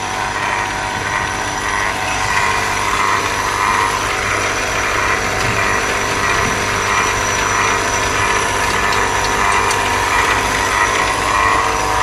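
Electric refrigeration vacuum pump running steadily with a continuous mechanical hum. It has pulled the system down to 500 microns and is now shut off from it by the closed manifold valve.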